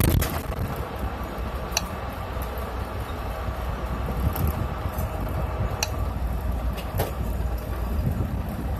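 Bus driving slowly, heard from the cabin: a steady low engine and road rumble, with three brief sharp clicks.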